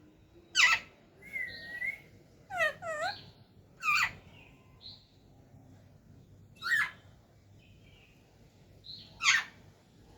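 Pet parrot calling: a series of short, sharp squawks and chirps that bend in pitch, some in quick pairs, with pauses of a second or more between them.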